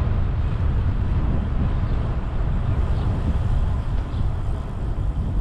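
Wind buffeting the microphone of a camera riding on a moving bicycle: a steady, loud low rumble.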